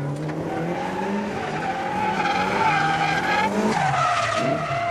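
Drift car sliding through a corner: the engine revs hard while the tyres squeal steadily, and the engine note drops about three and a half seconds in.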